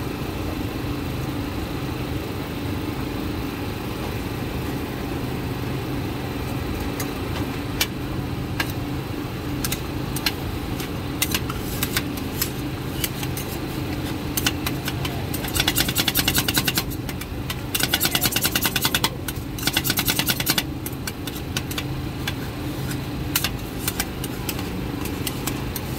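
Two metal spatulas tapping, scraping and chopping on the steel cold plate of a rolled-ice-cream machine, chopping an Oreo into the freezing cream base. The taps grow more frequent from about a third of the way in, with quick runs of chopping strokes a little past the middle. A steady low machine hum runs underneath.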